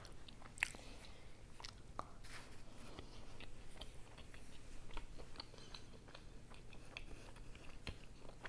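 Close-miked chewing and biting of pepperoni pizza: soft wet mouth clicks and small crust crunches scattered throughout, with one sharper click about half a second in.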